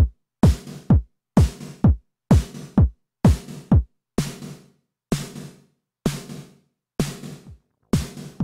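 Background electronic music: a steady drum-machine beat of deep kick drums that drop in pitch, with sharp hits over them.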